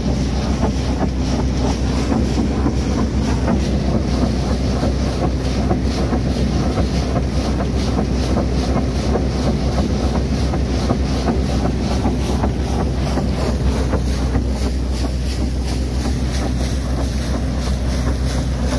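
Water and air blasting steadily out of a newly drilled borewell's discharge pipe as the well is test-pumped, a loud continuous rushing spray. A steady low engine drone from the drilling rig runs underneath.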